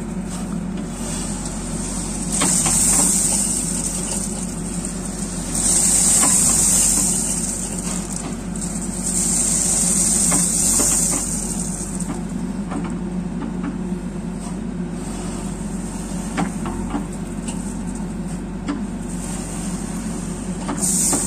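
A diesel engine runs steadily at idle. Over it, a loud high hiss swells and fades three times in the first half and once more near the end.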